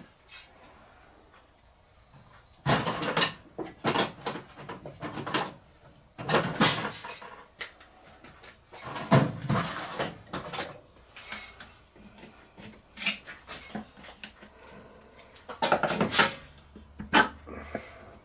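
Small metal parts clinking and clattering in several short bursts: spanners, nuts and brass bearing parts handled and knocked together while the main bearing caps are taken off a small steam engine's crankshaft.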